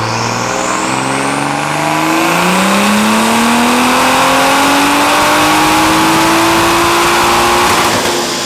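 Toyota Supra's B58 turbocharged 3.0-litre inline-six, fitted with a Remnant turbo kit, making a sixth-gear full-throttle pull on a chassis dyno. The engine note climbs slowly and steadily in pitch for about eight seconds, then levels off and backs off near the end. A faint high whistle rises over it in the first couple of seconds.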